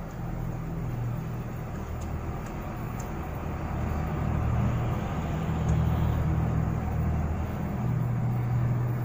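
A low, steady engine-like rumble, rising and falling in loudness, with a few faint light clicks a couple of seconds in and again later.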